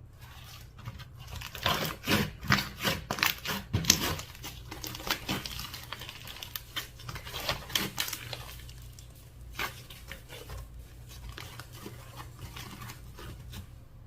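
Slime being squeezed and worked by hand, giving a dense run of sharp crackles and pops that thin out after the first few seconds.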